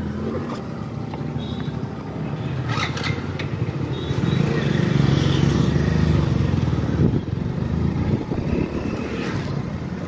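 Motorcycle engine running as the bike rides slowly along a street, getting louder for a few seconds in the middle.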